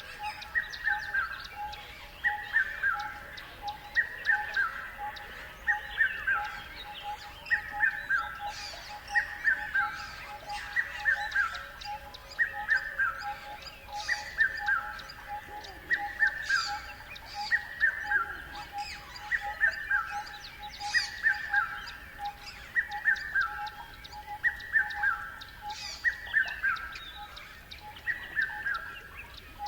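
Wildlife ambience: a bird repeats a short falling call about every second and a half over a steady, fast-pulsing trill, with scattered higher chirps from other birds.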